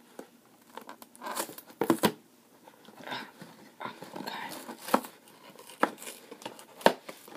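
A cardboard Lego box being opened by hand: fingers pick and scratch at the box's seal, with tearing and rustling of cardboard and several sharp clicks and taps.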